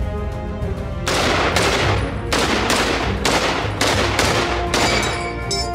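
M1 Garand rifle fired in a rapid string of about eight shots, roughly half a second apart. Near the end comes a short, high metallic ping: the empty en bloc clip ejecting as the rifle runs dry. Background music plays underneath.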